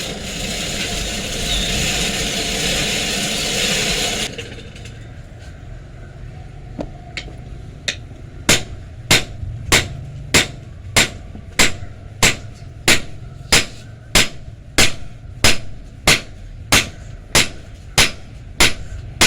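A power tool runs with a loud, steady noise and cuts off suddenly about four seconds in. After a few scattered taps, a hammer strikes metal at an even pace, about three blows every two seconds.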